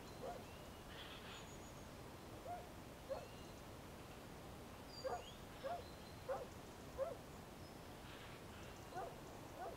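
Faint outdoor ambience with about a dozen short animal calls, each rising in pitch, coming at irregular intervals and bunched together about halfway through, and a few thin, very high bird chirps.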